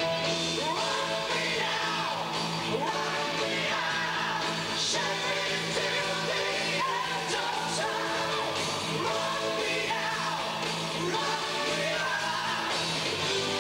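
Hard rock band playing live, a male lead singer belting over electric guitar, bass, keyboards and drums, recorded from among the audience.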